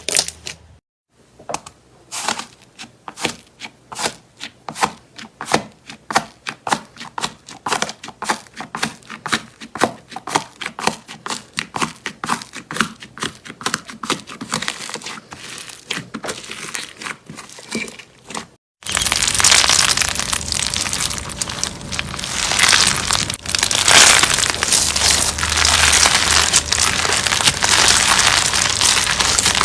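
Slime being squeezed and pressed by hand, giving a run of sharp clicks and pops. About two-thirds of the way through it switches abruptly to a denser, louder continuous crackling.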